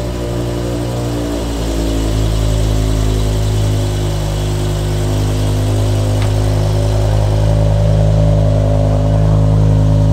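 BMW M6's 5.0-litre V10 idling on its stock exhaust just after start-up, the idle speed settling down during the first couple of seconds and then running steady. A car door shuts about six seconds in.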